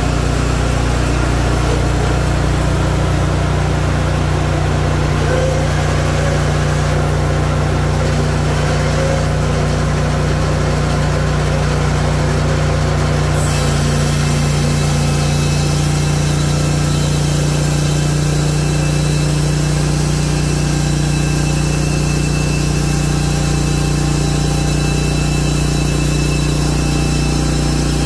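Hud-Son Oscar 336 portable bandsaw mill's gas engine running steadily. About halfway through its sound changes, with a higher hiss and a new steady tone joining the engine note.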